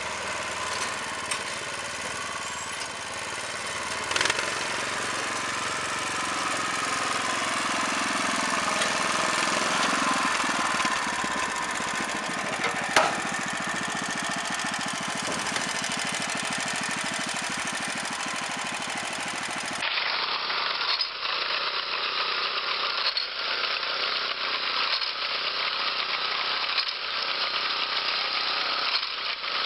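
Small petrol engine of a rice harvesting machine running, with a steady mechanical clatter and a couple of sharp knocks. About two-thirds of the way through the sound cuts abruptly to the engine of a walk-behind rice reaper running with a fast ticking rattle.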